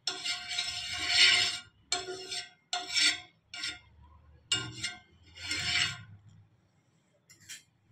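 Metal spoon scraping over an oiled nonstick tawa as it spreads the oil: one long stroke, then about five shorter ones, stopping about six seconds in, with a faint last scrape near the end.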